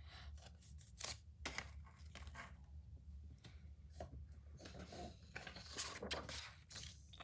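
Sheets of paper being handled: faint scattered rustles and crinkles, a little louder about six seconds in.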